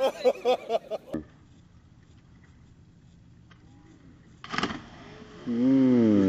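People's voices calling out in the first second and again near the end, with a quiet stretch between them and one short burst of rushing noise about four and a half seconds in.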